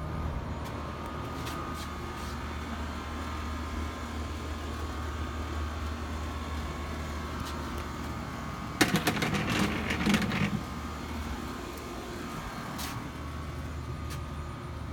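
A steady low mechanical hum with faint tones above it, broken about nine seconds in by a brief loud noisy burst lasting about a second and a half, with a few faint clicks scattered through.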